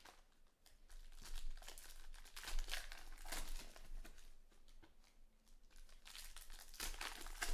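Foil wrapper of a 2020 Panini Select Baseball card pack being torn open and crinkled by hand, in two spells of rustling.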